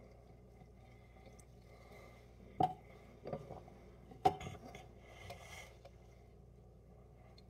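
Two sharp knocks, a couple of seconds in and again about four seconds in, with lighter clinks between, as a drinks can and a stainless-steel cocktail shaker are handled on the counter. Just after, there is a short hiss of sparkling water poured from the can into the shaker.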